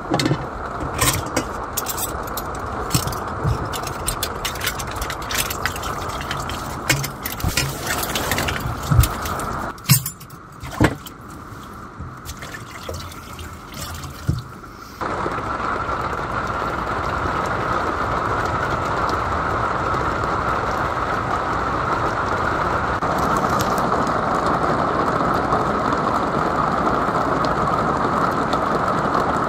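Dishes and utensils clinking and knocking as they are washed and stacked in a kitchen sink. About halfway through, the sound changes abruptly to a steady, even rush of heavy rain on the RV's roof.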